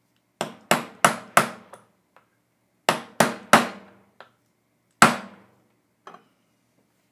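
Brass-headed hammer tapping a steel pin punch to drive the roll pin that holds the AR gas tube in its gas block. A quick run of four taps, then three more, then a single tap about five seconds in, each with a short metallic ring.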